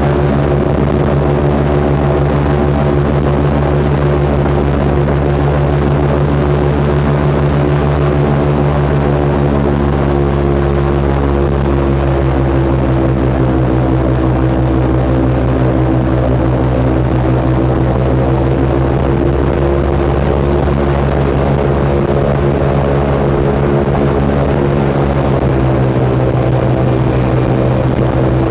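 Airboat engine and its open air propeller running at cruising speed, a loud, steady drone whose pitch shifts slightly as the boat travels.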